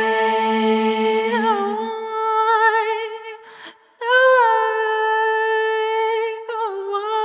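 A cappella voices holding long wordless hummed notes in harmony, with a lower voice dropping out about two seconds in. After a short break near the middle, one long note is held with a slight waver.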